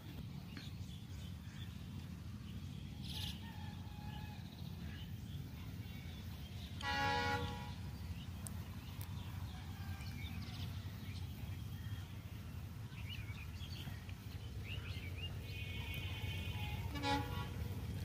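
Horn of an approaching Bangladesh Railway diesel locomotive, one blast of about a second, then a short toot near the end, over a low steady rumble. Birds chirp now and then.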